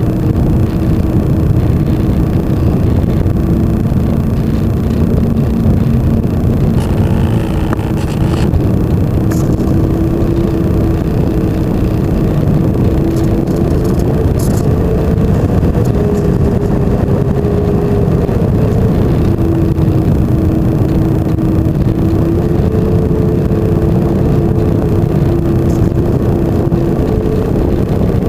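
Electric motor and propeller of a flying-wing model plane in flight: a steady drone whose pitch steps up and down several times as the throttle changes, over a heavy, constant rush of air noise.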